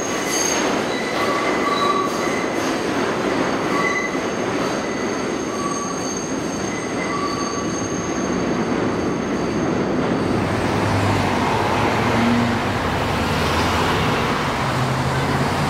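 R142A subway train pulling out around the tight South Ferry loop, its wheels squealing in on-and-off high tones over a steady rumble. About ten seconds in, this gives way to street traffic with a bus engine running.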